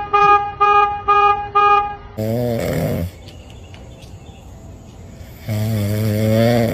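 A vehicle horn tooting five quick times, then a sleeping cat snoring in two long, low breaths.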